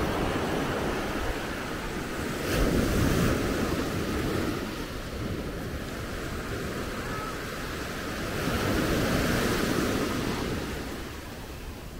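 Small waves breaking and washing up a sandy beach, the rush of surf swelling about three seconds in and again near nine seconds, with wind buffeting the microphone.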